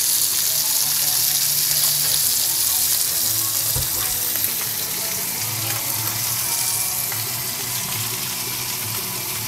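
A spice-marinated salmon fillet sizzling steadily in olive oil on a griddle pan, with a brief low knock about four seconds in.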